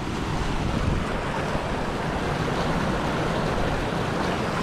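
Fast, deep stream rushing forcefully under a bridge: a steady, even noise of running water.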